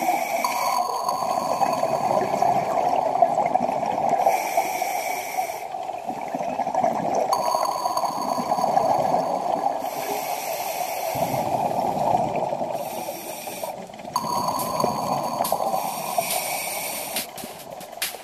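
Scuba diver breathing through a regulator underwater, with a rush of bubbles in slow repeating breath cycles a few seconds apart.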